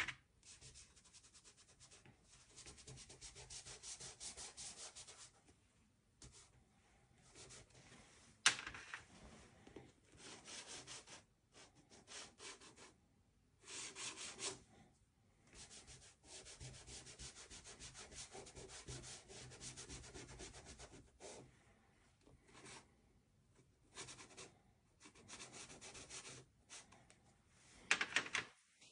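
A stick of soft pastel scratching and rubbing across coloured pastel paper, in strokes lasting from a second to a few seconds with short pauses between. There is a sharp tap about eight seconds in.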